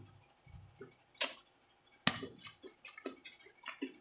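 Close-up eating sounds: a person chewing crunchy food, a string of sharp clicks and smacks, the loudest about a second in and just after two seconds.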